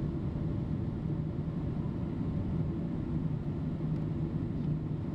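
Steady low rumble of a Boeing 767-300 airliner in flight, engine and airflow noise heard from inside the passenger cabin on the approach, with a steady low hum running through it.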